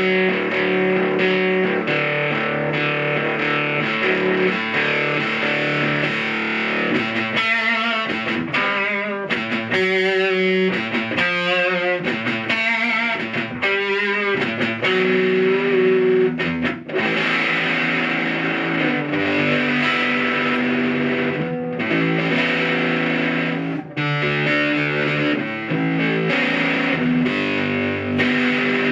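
Electric guitar played through the Stomp Box Fuzz pedal's High Tops channel 2, a fuzz circuit inspired by the Scattered Abroad Hungry Panda: distorted, sustained chords and riffs, with wavering single-note lines about ten seconds in.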